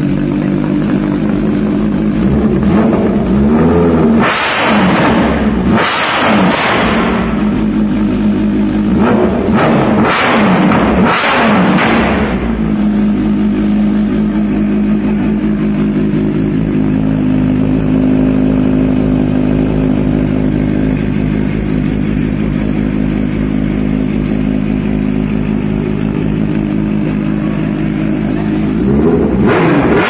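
Kawasaki Ninja H2's supercharged inline-four running through a freshly fitted Vandemon full-system exhaust. It gives several sharp throttle blips over the first dozen seconds, settles into a steady idle, then revs once more near the end.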